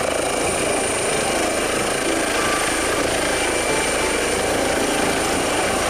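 Eurocopter EC135 air ambulance helicopter running at flight rotor speed as it lifts off: steady rotor noise with a thin, high turbine whine over it.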